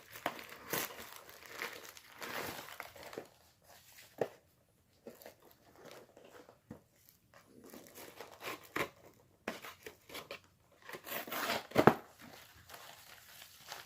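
Packaging being crinkled and torn by hand while wooden cat figurines are unwrapped: irregular rustling and tearing with scattered clicks, and a sharp knock near the end.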